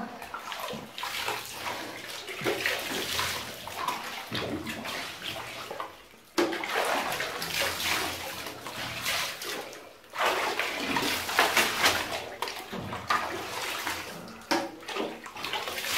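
Water streaming over a person's head and hair and splashing as shampoo is rinsed out. It comes in long spells broken by short pauses about six, ten and thirteen seconds in.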